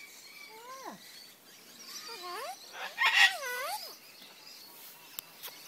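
Parrots calling: several warbling, up-and-down squawks, with one loud harsh screech about three seconds in.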